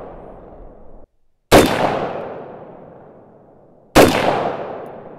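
Sig Sauer MCX Virtus pistol firing two single shots about two and a half seconds apart, with a bare flash hider on the muzzle and no blast shield. Each shot trails off in a long echo, and the tail of a shot fired just before is still fading at the start.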